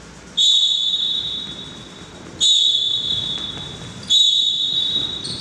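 Sports whistle blown three times in short, sharp blasts about two seconds apart, each echoing in a gymnasium.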